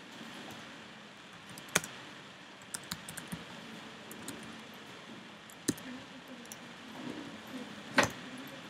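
Typing on a computer keyboard: irregular keystrokes, with a few sharper, louder key strikes spread through the stretch.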